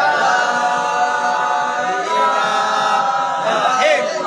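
Many voices singing or chanting together in long held notes, like an unaccompanied choir, with one voice wavering and sliding in pitch near the end.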